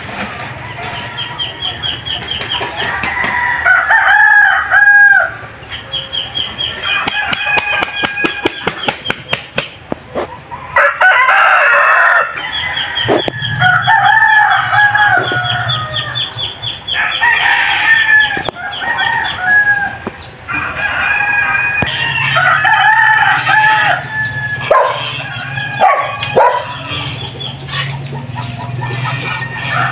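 Chickens calling throughout: roosters crowing again and again, with hens clucking, including a run of quick clucks.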